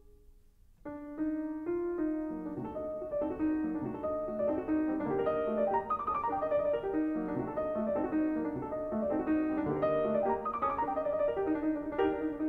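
Background piano music: after a brief quiet pause, a flowing run of notes begins about a second in and carries on steadily.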